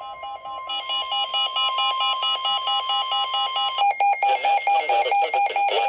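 Weather radio alert: a receiver's alarm beeping in a rapid, even two-pitch warble, over the steady 1050 Hz NOAA Weather Radio warning tone, which cuts off about four seconds in.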